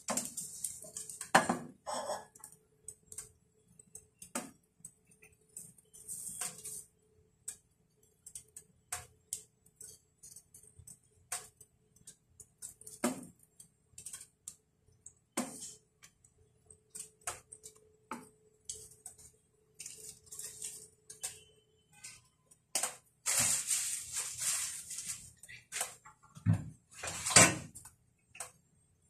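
Chopsticks and a wooden spatula tapping and clicking against a ceramic nonstick frying pan while a sandwich is built, turned and pressed. The taps come one at a time, and there is a longer scraping hiss about two-thirds through and another near the end.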